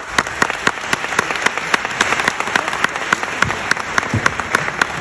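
Concert audience applauding: a steady wash of clapping with many single sharp claps standing out.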